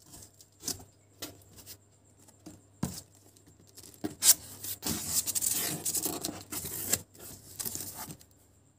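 Cardboard shipping box being opened by hand. A few short taps and scrapes as the flaps are handled, then a few seconds of cardboard sliding and rustling as a cardboard packing insert is pulled aside. The rustling stops shortly before the end.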